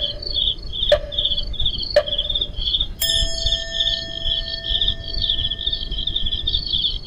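Cricket-chirping sound effect, an even run of high chirps about three a second, the comic cue for an awkward, silent wait. Sharp clock-like ticks come once a second for the first three seconds, then a steady bell-like tone is held under the chirps.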